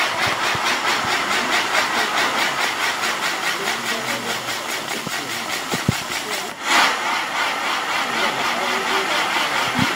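Spinning fireworks on a castillo firework tower hissing steadily, with a fast, even pulsing as the wheels turn. A short, louder rush of hiss comes about two-thirds of the way through.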